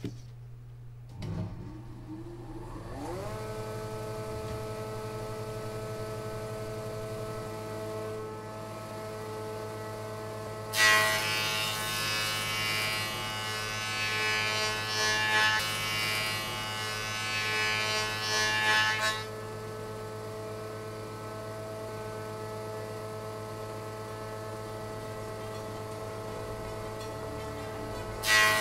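Elektra Beckum HC 260 M planer thicknesser's motor starting and spinning up over about two seconds to a steady whine. About eleven seconds in, a board is cut by the blades for about eight seconds, much louder and noisier, then the machine runs on unloaded; another cut begins near the end.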